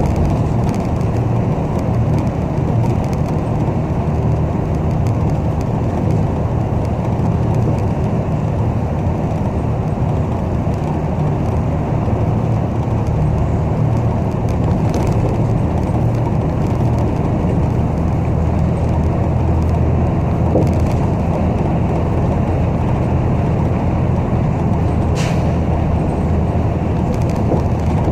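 City bus driving, heard from inside the cabin: a steady low rumble of engine and road noise. There is a brief sharper, higher sound about 25 seconds in.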